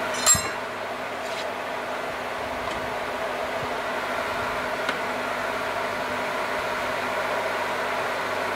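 Steady motor hum from an electric chainsaw mill, an even drone that does not change. Just after the start there is one sharp metallic clank, and a faint click comes about five seconds in.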